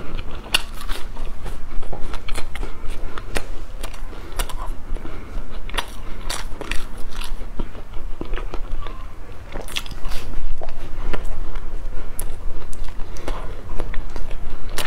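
Close-miked biting and chewing of a puffed-grain sachima bar with pumpkin seeds: irregular crunches and crackles.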